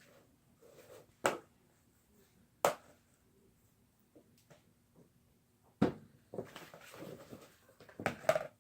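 Three sharp single taps or clicks, a second or more apart, then a run of softer handling and rustling noise and a short louder cluster near the end.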